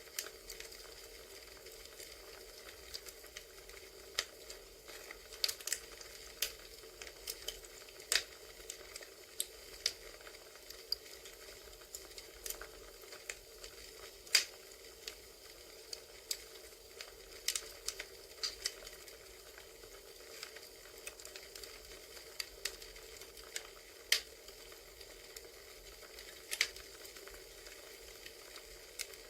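Crackling campfire sound: a steady soft hiss broken by irregular sharp pops and snaps from burning wood.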